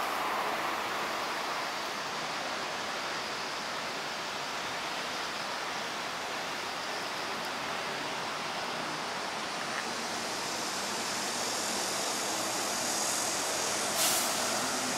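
Steady, even outdoor hiss with no single clear source, and a short sharp click near the end.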